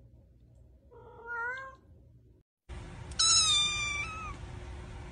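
Two cat meows: an adult black cat gives a short meow with a slightly rising pitch about a second in. About three seconds in, a black-and-white kitten follows with a louder, high-pitched meow lasting about a second that falls slightly in pitch.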